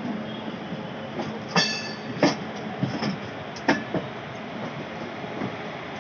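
Train wheels rolling on rails: a steady rumble broken by a few sharp clacks as the wheels cross rail joints or points. A brief high wheel squeal comes about a second and a half in.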